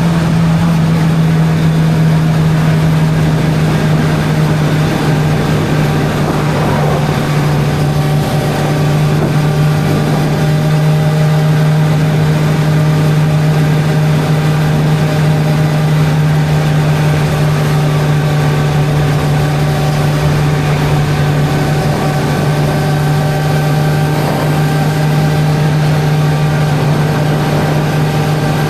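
Suzuki GSR 600's inline-four engine running at a steady cruising pace, its note holding even, over rushing wind noise.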